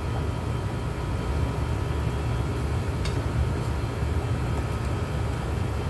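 Steady low mechanical rumble with a faint, even hum, and a single short click about three seconds in.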